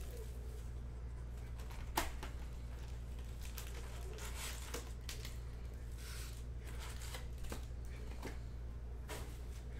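A cardboard trading-card box being opened by hand: scattered rustles, scrapes and light taps of the cardboard lid and foil packs, with one sharp click about two seconds in. A steady low hum runs underneath.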